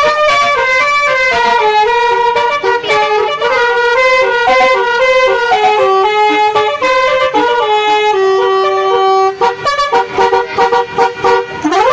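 Basuri telolet horn playing a melody of short stepped notes on its set of electric trumpets, with one long held note about two-thirds of the way through and a quick upward pitch sweep at the very end.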